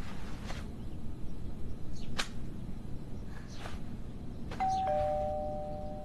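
Two-note doorbell chime about three-quarters of the way in: a higher ding followed by a lower dong, both notes ringing on. A few soft clicks come before it.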